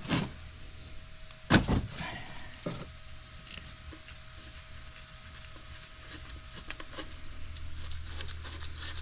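A sharp clunk of the oil drain pan being knocked into place under the engine, followed by two lighter knocks, then a low steady hum with faint handling clatter.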